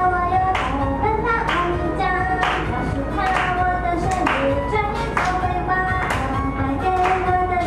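Upbeat pop song played with a woman singing the melody into a microphone, with a sharp clap on the beat about once a second.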